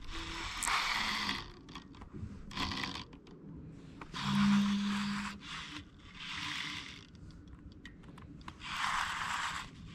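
Baitcasting reel cranked in short spurts of about a second each, five times with pauses between, as a jerkbait is worked back in. A short low hum joins the reel noise about four seconds in.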